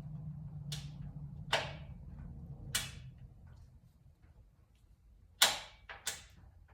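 Sharp metallic clicks and clacks at uneven intervals, about five in all, from the freshly installed BSA A65 gearbox being worked through its gears by hand. A low hum underneath fades out in the first half.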